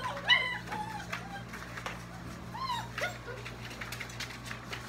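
Young puppies whimpering: short whines that rise and fall in pitch, the loudest about a third of a second in, a cluster of lower ones just after, and one high whine about two and a half seconds in, over a steady low hum.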